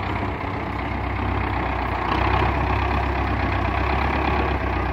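Belarus 510 tractor's diesel engine running steadily while it works its front loader.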